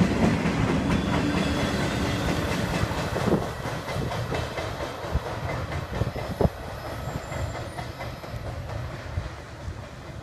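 Empty flatcars of a freight train rolling past and away, wheels clacking on the rails, the sound fading as the train recedes. A few sharp clanks stand out a few seconds in.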